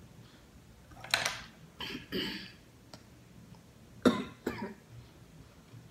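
A woman coughing in two fits, three coughs about a second in and two more at about four seconds, as she eats.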